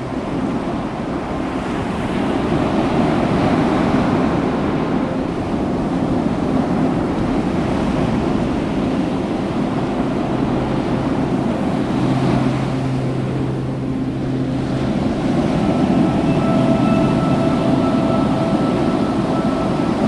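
Ocean surf washing in steadily with wind rumbling on the microphone, and a faint held tone at several pitches in the last few seconds.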